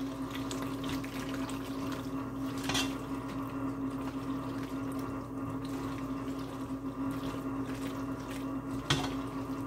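Cooked pasta being stirred into Alfredo sauce in a large pot with a spoon: soft, wet squishing and scraping, with two knocks of the spoon against the pot, about three seconds in and near the end. A steady low hum runs underneath.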